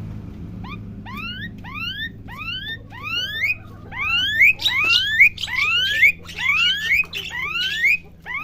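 Jalak suren (pied starling) giving a long run of rising whistled notes, one after another, getting louder and quicker from about four seconds in, over a steady low hum.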